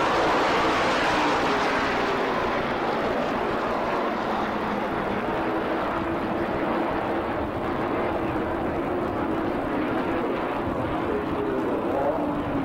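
NASCAR Modified race cars running at speed around the track, a steady drone of several V8 engines with shifting pitch as the cars go by.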